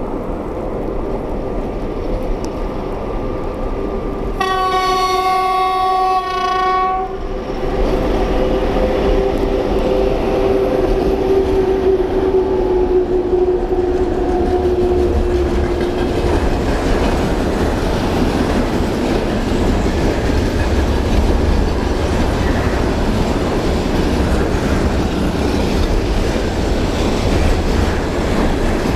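Russian electric locomotive's horn sounding one blast of about two and a half seconds, then the train passing with a steady heavy rumble and wheel clatter on the rails that grows louder and holds.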